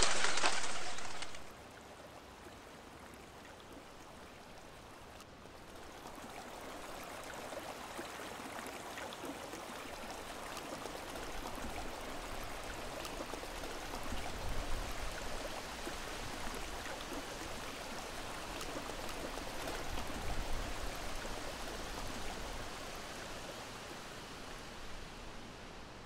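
Steady rush of flowing river water, swelling gently and then easing off. A louder sound at the start stops abruptly about a second and a half in.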